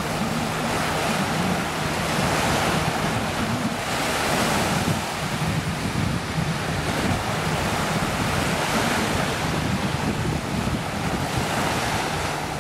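Wind buffeting the microphone over surf, with the faint steady drone of a jet ski's engine running underneath as the craft heads away.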